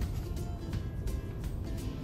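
Music with a steady beat, over a low rumble.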